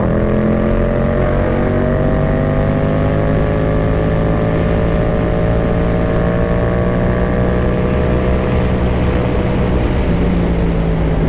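Yamaha MT-07's 689 cc parallel-twin engine pulling in fifth gear at highway speed, its pitch rising slowly for the first few seconds and then holding, over heavy wind rush.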